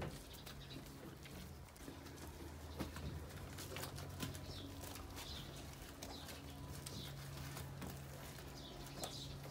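Birds calling, with short high chirps every second or so over a low steady hum.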